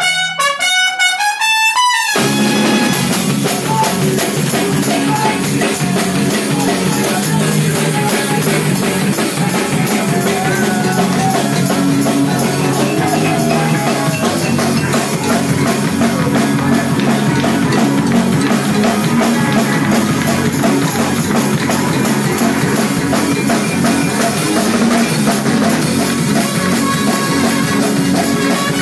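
A live band with drum kit, guitars and a trumpet playing loud, dense music. The full band comes in about two seconds in, after a short pitched lead-in.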